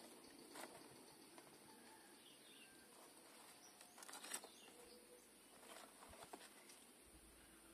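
Near silence, with a few faint rustles and light taps from a football boot and its tissue-paper wrapping being handled.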